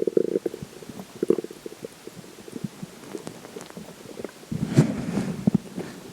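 Human stomach growling and gurgling after drinking water: irregular low gurgles with scattered small pops, a short gurgle about a second in and a longer, louder one about three-quarters of the way through.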